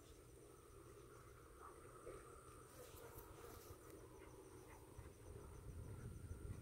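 Near silence: faint outdoor ambience with a steady, high-pitched insect drone.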